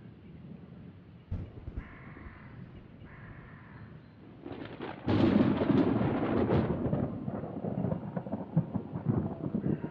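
Crows cawing a couple of times, then about five seconds in a loud thunderclap breaks and rolls on as a continuing rumble.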